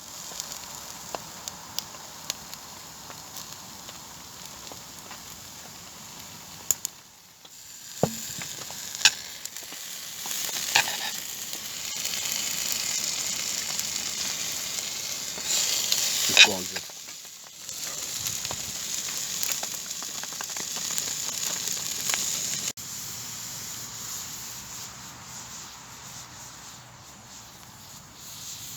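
Partridge breast meat frying in a pan over a campfire: a steady sizzle with scattered sharp pops and crackles, and a few brief squeals, the loudest about sixteen seconds in.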